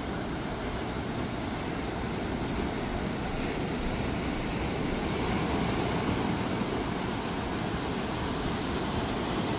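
Steady outdoor background noise, a low even rumble with no distinct events.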